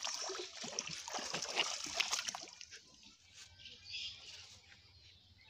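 A hooked magur (walking catfish) thrashing in shallow pond water at the bank, a dense run of splashes that dies down after about two and a half seconds.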